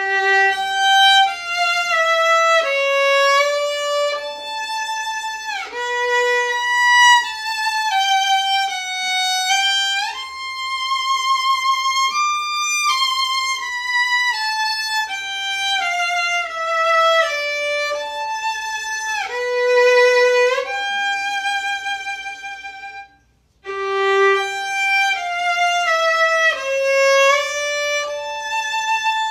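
Solo violin playing a slow melody one note at a time, with vibrato on the held notes. It breaks off briefly about three-quarters of the way through, then goes on.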